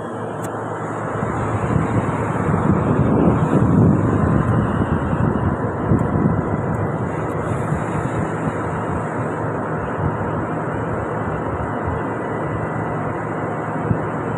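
Offshore platform machinery running with a steady low drone, mixed with wind buffeting the microphone, loudest about two to four seconds in.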